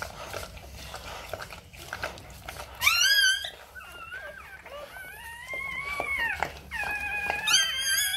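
Newborn XL American Bully puppy crying in high squeals: a short sharp squeal about three seconds in, then longer rising-and-falling cries. Faint rustling comes before the first squeal.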